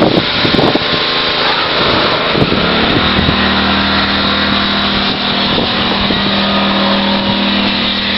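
Pressure washer running: an engine at a steady, unchanging speed under a loud rushing hiss. The engine hum settles to a steady pitch about three seconds in.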